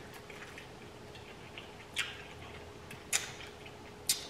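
Close-miked chewing of a bite of corn on the cob: sharp wet crunches and mouth clicks, three louder ones about a second apart in the second half, over a faint steady hum.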